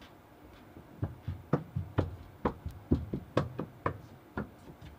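A quick, irregular run of sharp knocks or taps, about fifteen, starting about a second in and stopping near the end.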